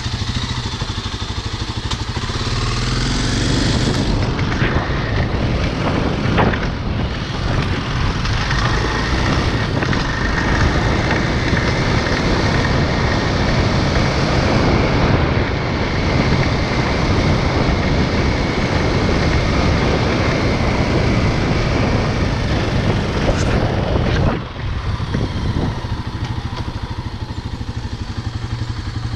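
Motorcycle engine running as the bike is ridden along a street, with a steady rushing noise over it. The sound grows louder a few seconds in, then drops off suddenly about three-quarters of the way through as the bike slows.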